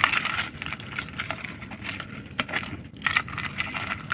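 Live mud crabs in an aluminium pot, their shells and legs making irregular clicks and scrapes against the metal as they are handled.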